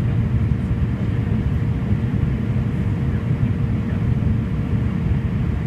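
Cabin noise of a Fokker 50 turboprop airliner on approach with its landing gear down: a steady low drone from its turboprop engines and propellers, with one constant hum held at a single pitch above it.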